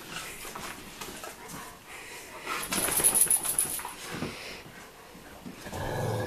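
Bernese mountain dogs at play with a large plush toy, a dog vocalizing. About three seconds in there is a louder burst of rapid rattling for about a second, and a short low vocal sound comes just before the end.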